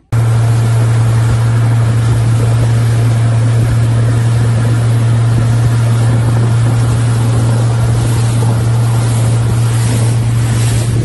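A motorboat running at speed: a steady, loud low engine drone under a constant rush of wind and water.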